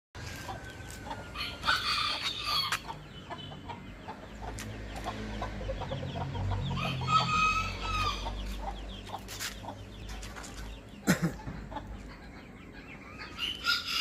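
Chickens calling: clucking with two long rooster crows, one about two seconds in and one around seven seconds, and a third crow starting near the end. A sharp knock sounds just after eleven seconds.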